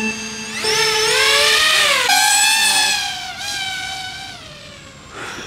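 FPV quadcopter drone's motors and propellers whining, the pitch rising sharply about half a second in as it throttles up and lifts off under the weight of a GoPro. The whine then wavers up and down and fades as the drone climbs away.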